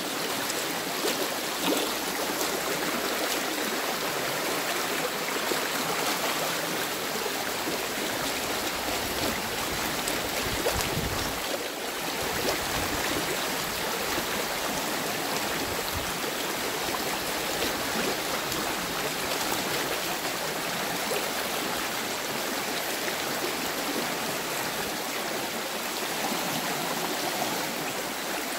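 River water rushing over rocks in shallow rapids, a steady watery noise.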